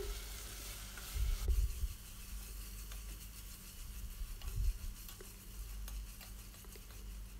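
Metal ladle stirring and scraping sautéing onions and ginger-garlic paste in oil in a stainless steel pot, with a faint sizzle and a few light clicks of the ladle against the pot.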